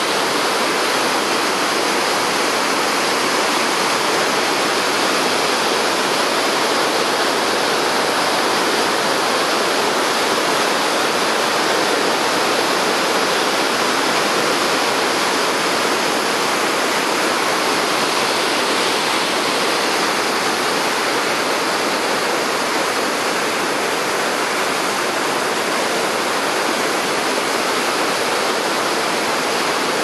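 Large waterfall, a broad sheet of heavy water plunging over a rock ledge into a misty gorge: a loud, steady rushing that never lets up.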